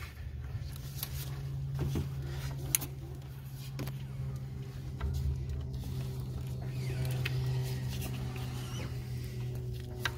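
Small clicks and scrapes of gloved hands and pliers working a fuel-line hose clamp onto a port-injector fuel rail, with one sharper click a little under three seconds in, over a steady low hum.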